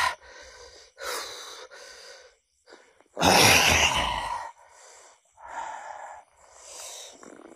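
A person breathing heavily in ragged gasps, roughly one breath a second, with one louder, longer gasp about three seconds in.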